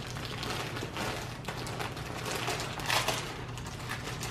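White plastic poly mailer being torn open and handled, an irregular run of ripping and crinkling plastic.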